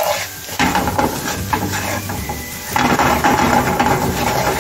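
Chopped onion and ground spices sizzling in butter in a frying pan, with a wooden spatula scraping and stirring against the pan.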